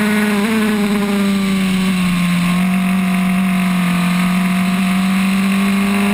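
Open-wheel single-seater race car's engine, heard onboard, running hard at high revs down a straight. It holds a steady high note that sags slightly in pitch midway and climbs back, over wind noise.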